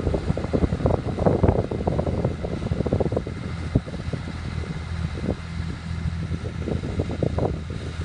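A farm tractor's diesel engine running steadily as it drags a grading blade along tilled orchard rows, with gusts of wind buffeting the microphone.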